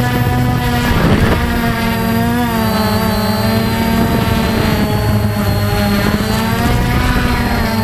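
Cheerson CX-20 quadcopter's motors and propellers buzzing, heard close up from its onboard Mobius camera, the pitch drifting up and down as the throttle is worked in a low hover. A brief rush of noise comes about a second in.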